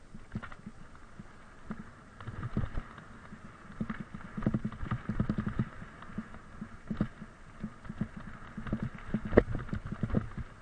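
Mountain bike rattling and clattering over a rough trail on a downhill run, with irregular bumps and knocks from the frame and chain; the loudest knock comes about nine seconds in.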